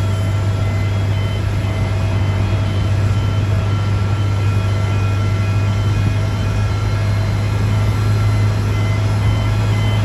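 Towbarless aircraft tug towing a Boeing 777: a steady low engine drone, with repeated short high beeps from the tug's warning alarm over it.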